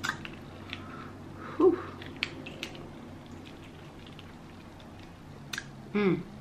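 King crab leg meat being pulled from its shell by hand, giving scattered light clicks and crackles of shell. A brief voiced murmur comes about one and a half seconds in and again near the end.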